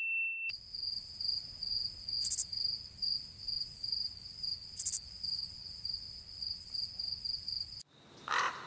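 Crickets chirping in a steady, fast-pulsing high trill that starts abruptly and cuts off suddenly near the end, the comedy 'crickets' cue for a dull, silent moment. A short ding tone rings just before the chirping starts.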